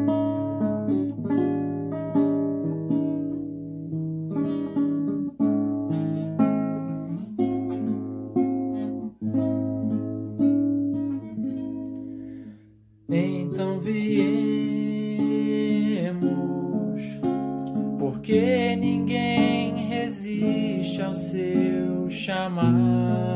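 Classical guitar fingerpicked in slow arpeggios, the notes plucked one by one. It stops briefly about halfway through, and then a man's singing voice comes in over the guitar.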